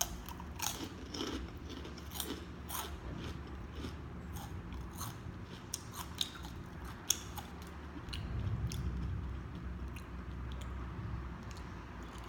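A person chewing crunchy food close to the microphone: irregular crisp crunches and mouth clicks.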